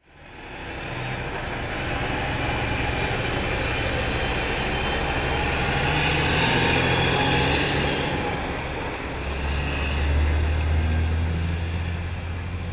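Loaded logging trucks driving past on the road, diesel engines running and tyres rolling, fading in at the start. The engine rumble grows deeper and heavier near the end.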